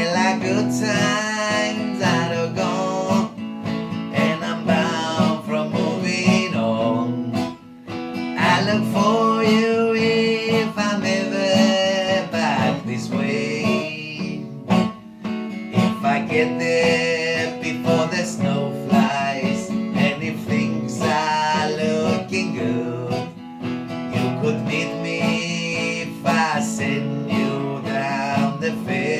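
Country-folk music: a strummed acoustic guitar with a wavering melody line, most likely a singing voice, carried over it.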